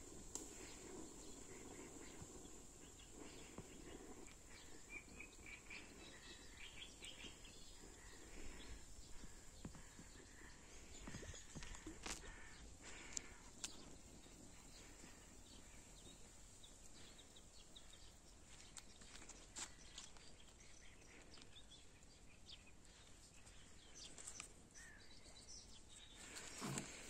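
Near silence: faint outdoor ambience with a steady high hiss and a few faint bird chirps, plus a few faint sharp clicks about halfway through.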